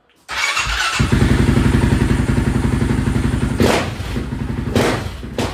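Honda TRX700 ATV's single-cylinder engine running with a steady pulsing beat, broken by a few brief sharp noises. It is running a little rich on the bottom end, which the owner thinks is flooding it out.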